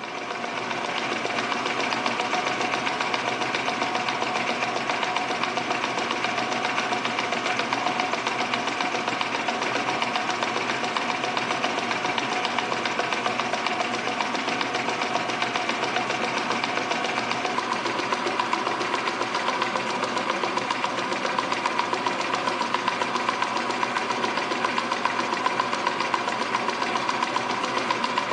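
Metal lathe running steadily, turning down the outside of a steel tube held between the chuck and a tailstock-supported mandrel, with a fast, even mechanical clatter. A higher whine grows stronger past the middle.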